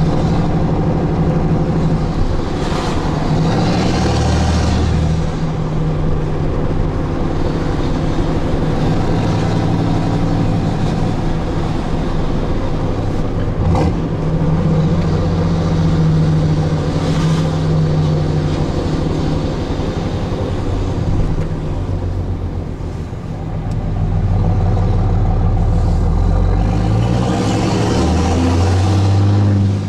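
6.7-litre Cummins inline-six turbo-diesel of a Ram 3500, its variable-geometry turbo tuned for an old 5.9-style Cummins sound, running loud through a straight-piped 5-inch side-exit exhaust, heard from inside the cab. The engine note climbs and falls several times as the truck is driven through the gears of its six-speed manual, with a brief dip a little after the middle and a sharp drop near the end.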